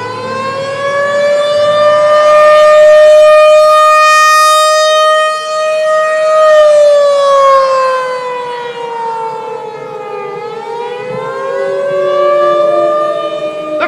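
Civil-defence warning siren wailing. Its pitch rises over the first couple of seconds, holds steady, then falls away, and a second rising wail begins about ten seconds in.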